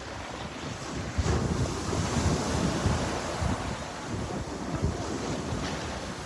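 Sea waves breaking and washing onto the shore, swelling about a second in, with wind buffeting the microphone.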